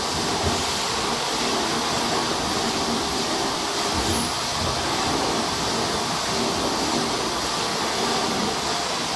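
Machinery of a bottle filling line running steadily: a continuous mechanical noise with a faint hum and light ticking.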